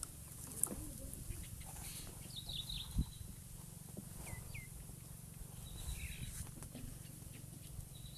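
Birds chirping faintly in the background over a low, steady hum, with a single short knock about three seconds in.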